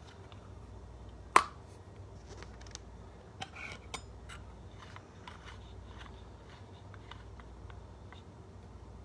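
Handling of a plastic Safe-Guard paste-dewormer syringe over a countertop with a metal spoon on it. One sharp clinking hit with a brief ring comes about a second and a half in. A few lighter clicks and taps follow about two seconds later, then scattered faint ticks.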